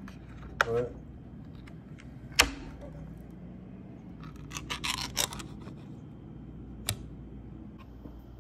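A tin of luncheon meat being opened by its peel-back lid with a small metal key: sharp metal clicks as the lid is hooked and breaks open, the loudest about two seconds in, and a burst of crackly scraping about halfway through as the lid peels back. Another click comes near the end.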